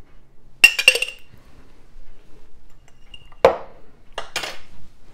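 Metal spoon clinking against glassware as the last of the sauce is scraped out and spread: a quick run of ringing clinks about a second in, then a duller knock and a short scrape.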